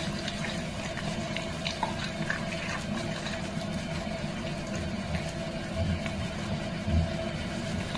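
Wet rubbing and light sloshing of hands lathering flea shampoo into a soaked cat's fur over a basin, with a few soft knocks. A faint steady hum runs underneath.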